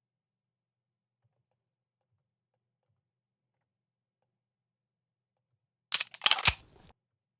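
Near silence, then about six seconds in a quick burst of three or four sharp gunshots from a gunshot sound effect being played back.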